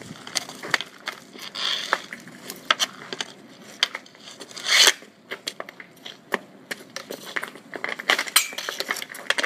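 Hockey stick tapping and scraping on the ground while stickhandling: a run of irregular sharp clicks and knocks, with one longer, louder hit about five seconds in.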